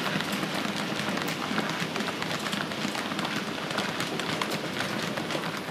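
HO-scale Märklin model steam locomotive running along the track close by: a steady rattling hiss of wheels on the rails, scattered with many small clicks.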